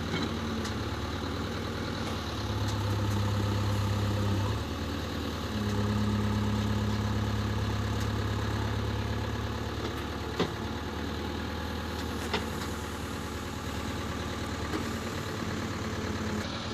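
JCB 3DX backhoe loader's diesel engine running steadily, twice rising to a louder, higher hum for a few seconds before dropping back. Two sharp knocks come about two seconds apart in the middle.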